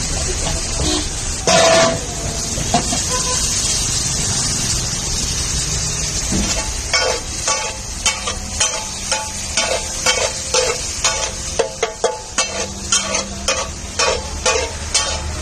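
Chopped vegetables sizzling in oil on a large flat street-food griddle (tawa), with a brief loud noise about one and a half seconds in. From about six seconds in, a metal spatula scrapes and strikes the griddle about twice a second as the vegetables are stirred and chopped.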